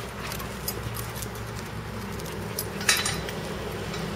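Scattered light metallic clinks and rattles, the sharpest about three seconds in, over a steady low hum.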